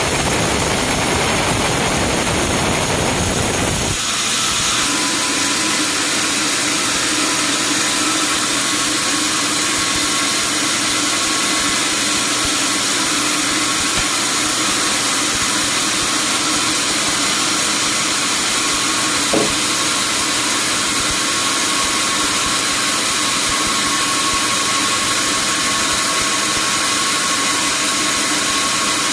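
Sawmill machinery running steadily. About four seconds in the sound changes abruptly, from a broad rumble to a thinner, hissy whine with steady tones, and there is a single short click later on.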